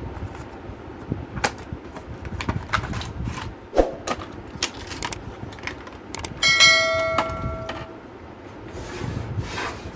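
Scattered metal clicks and knocks of parts being handled and fitted in a steel PC cabinet, with one sharp metallic clang about six and a half seconds in that rings for about a second.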